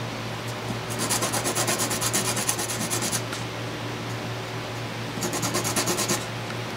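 Small wooden gear rubbed back and forth on a sheet of sandpaper to smooth off the tab remnants left from punching it out. Two spells of quick rasping strokes: one of about two seconds starting a second in, and a shorter one near the end.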